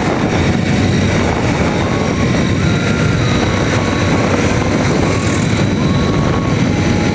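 Motorcycle riding at steady highway speed: the engine's continuous drone mixed with wind rush on the rider's microphone, even in level throughout.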